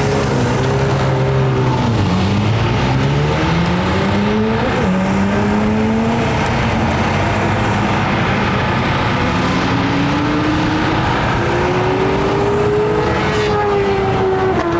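Racing motorcycle engines on the track accelerating hard, their pitch climbing and dropping back at each upshift, twice in the first five seconds, then another long climb.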